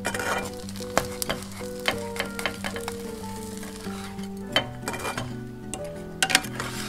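An egg-topped slice of bread sizzling in a frying pan as it is flipped with a wooden spatula. The spatula clicks and scrapes against the pan several times, loudest about a second in and near the end.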